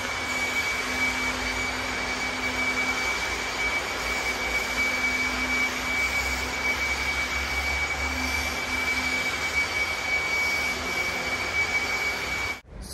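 Floor grinders sanding the floor, running steadily with a high, constant whine over a rushing noise. The sound cuts off suddenly near the end.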